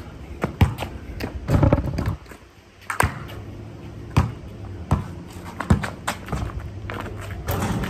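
Basketball bouncing on a concrete driveway during one-on-one play: a run of sharp, irregularly spaced bounces, with a lull about two to three seconds in.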